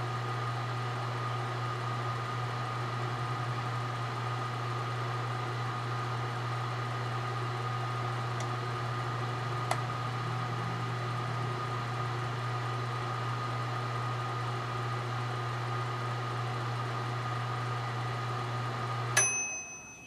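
Microwave oven running with a steady hum, then shutting off near the end with a click and a short beep as its cooking cycle ends.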